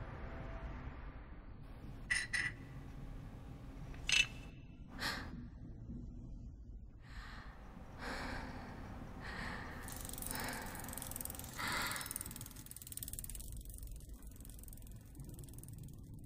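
Soft breathy sounds like a woman's gasps and sighs, a few short and sharp about two and four seconds in, then longer breaths between seven and twelve seconds, over a faint low hum.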